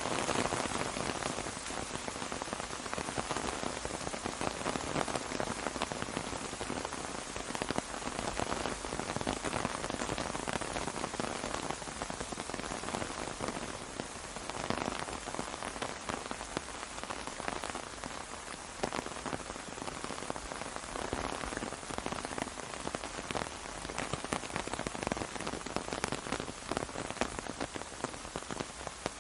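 Steady rain falling on an umbrella, a dense even hiss of many small drop impacts that swells and eases a little from time to time.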